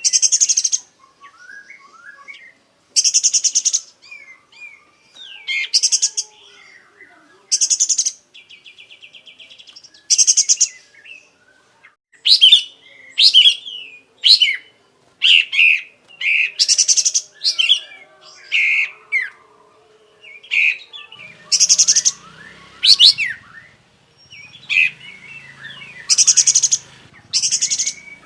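Kapas tembak bulbul singing hard and almost without pause, working through its repertoire. Short bursts of very rapid, rattling high trills alternate with quick swooping whistled notes.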